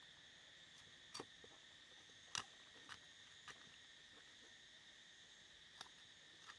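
Cleaver chopping a large fish's head on a wooden stump block: about six short, sharp knocks, the loudest about two and a half seconds in. Under them runs a faint, steady chorus of insects.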